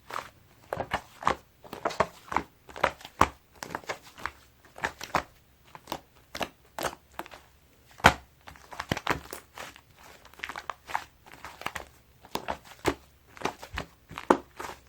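Sticky clay slime being squished and pressed by hand, making a steady run of wet clicks and pops, two or three a second.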